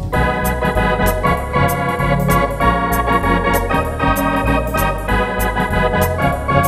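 Wersi Atlantis electronic organ played with swinging drawbar registrations: sustained chords on the manuals over a moving pedal bass, with a steady run of sharp high ticks from a drum accompaniment.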